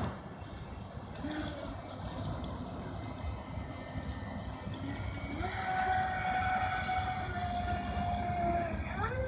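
RC jet boat (a modified NQD Tear Into) running across the water, its electric motor and jet drive whining. The whine is lower at first, settles into a steady higher whine from about five seconds in, and rises in pitch near the end.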